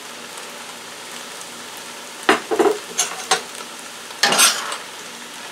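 Fried rice and vegetables sizzling steadily in a stainless steel skillet. From about two seconds in, a metal utensil scrapes and clinks against the pan several times as the rice is tossed to work the soy sauce through.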